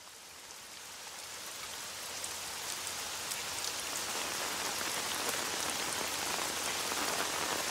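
Steady rain falling, fading in and growing gradually louder, with scattered sharp ticks of single drops.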